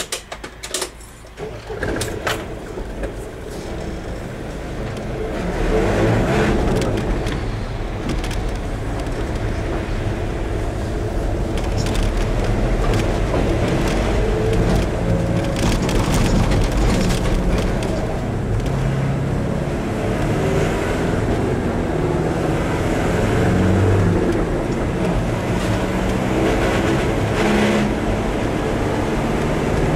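A few sharp clicks in the first couple of seconds, then a car pulling away and driving on, heard from inside the cabin: engine and road noise rise over the first six seconds and hold steady.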